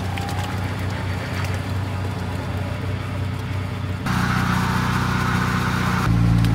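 Truck engine running steadily at idle. About four seconds in the sound jumps to a louder engine note with a hiss over it, and near the end to a louder, deeper engine note.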